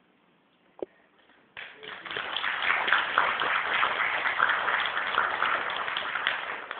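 Audience applauding, starting suddenly about a second and a half in and dying away near the end, after a single sharp knock about a second in.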